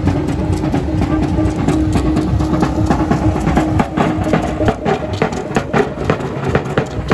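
Street-dance festival drum ensemble drumming, dense and loud, with a steady low hum underneath.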